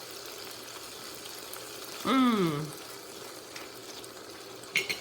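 Thick chana curry simmering in the pan with a steady sizzle. About two seconds in, a short falling vocal sound from a person.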